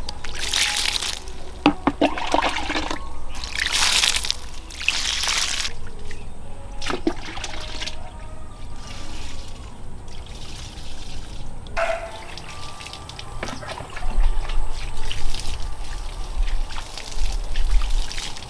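Water poured by hand from a small plastic scoop onto soil around seedlings, in several separate splashing pours a second or two long. A low rumble comes in near the end.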